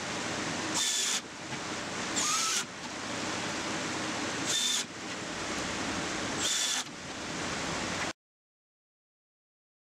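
Cordless drill driving screws into plywood in four short high whines, about two seconds apart, over a steady hiss. The sound cuts off to silence about eight seconds in.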